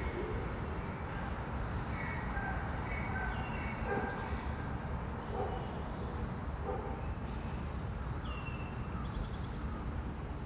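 Outdoor ambience: a steady low rumble with scattered short, high bird chirps and brief falling whistles throughout.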